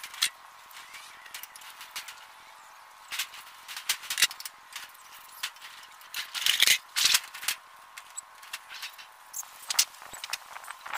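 Thin 0.4 mm sheet metal being handled and pressed by hand against a steel cabinet frame: irregular taps, scrapes and light rattles, busiest about six to seven seconds in.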